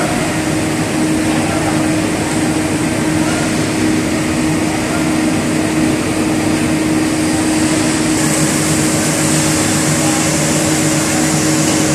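Chain grate coal-fired boiler plant running: a steady machinery drone with a constant low hum and a hiss, the hiss growing stronger about two-thirds of the way through.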